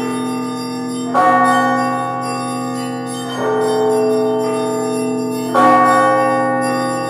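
Background music: slow, bell-like chords ringing over a sustained low drone, a new chord struck about every two seconds.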